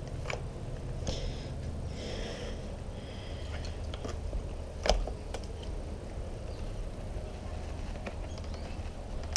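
Quiet hand-work noises from a motorcycle clutch lever and cable being taken apart: a few light clicks, one with a small thump about five seconds in, and a brief rustle, as the clutch cable and its casing are worked out of the lever. A low steady hum runs underneath.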